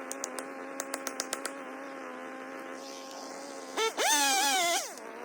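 Gas chainsaw engine running at a steady pitch, then revved briefly about four seconds in, louder and higher-pitched, before dropping back to its steady note. A few sharp clicks come in the first second and a half.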